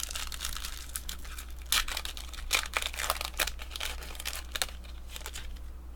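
Foil wrapper of a trading card pack being torn open and crinkled, a run of sharp crackles that is busiest and loudest about two to three seconds in.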